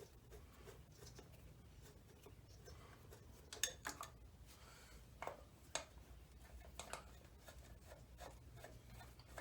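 Faint, irregular clicks and taps of hand tools on the ATV engine as a cover is being unbolted, over a low steady hum.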